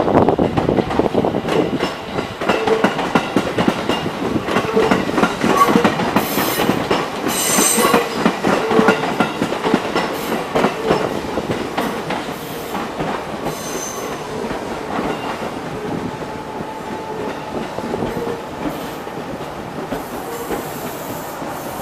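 Meitetsu 1200-series 'Panorama Super' electric train running slowly into the station. Its wheels clatter over the rail joints and give several short high squeals as it slows, and the sound eases off gradually.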